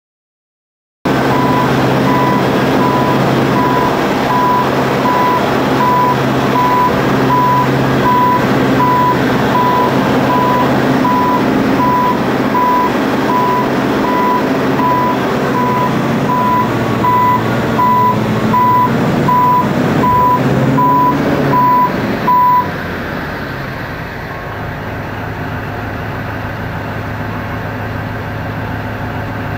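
Diesel engine of a low loader's heavy prime mover running, with a warning beeper sounding a steady run of beeps over it. The beeping stops about 22 seconds in and the engine runs on more quietly.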